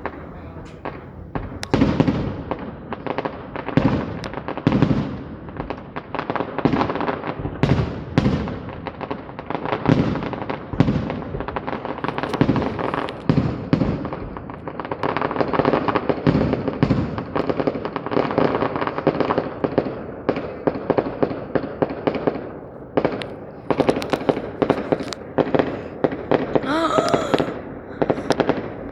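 Fireworks display in full swing: rapid volleys of bangs overlapping with crackling, one after another without a break.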